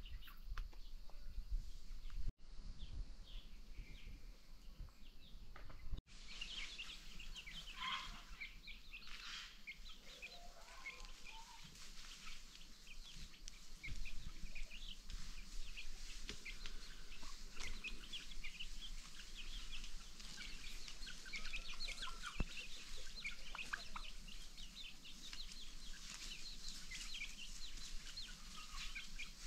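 Free-range chickens clucking, over a dense scatter of short, high bird chirps. The sound cuts out briefly twice in the first six seconds.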